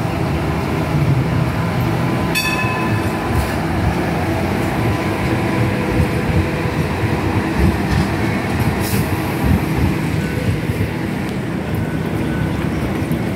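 A Hong Kong Light Rail train of two coupled cars passing close by, its wheels running on the track in a steady rumble with a brief sharp click a couple of seconds in.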